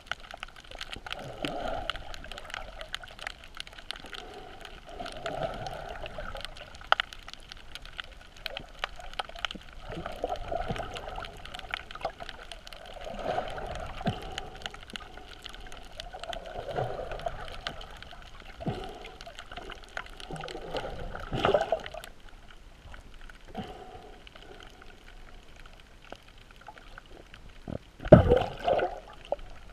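Underwater sound heard through a GoPro's waterproof housing: water swishing and rushing in slow swells every three to four seconds, with a scatter of small clicks and crackles throughout. Near the end a louder rush of water with a thump.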